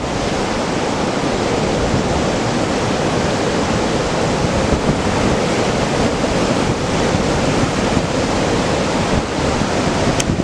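Ocean surf from a hurricane swell breaking and washing ashore in a steady, loud rush, with wind blowing over the microphone.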